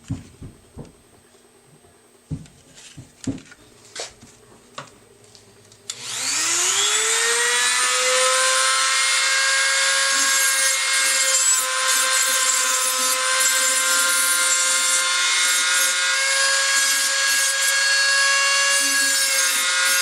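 A few light clicks and knocks of handling, then about six seconds in a high-speed rotary tool switches on, its whine rising quickly and settling into a steady high pitch that runs on loudly.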